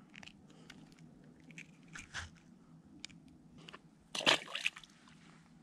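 Faint clicks and scrapes of hands unhooking a small perch, then a louder crunching scrape about four seconds in.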